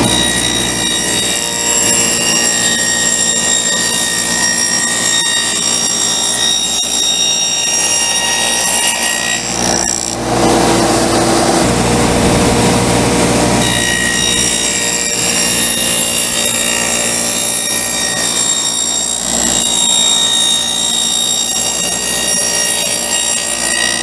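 Table saw running and cutting a dado groove in plywood drawer sides, the blade whining steadily, with a rougher, noisier stretch of cutting about halfway through.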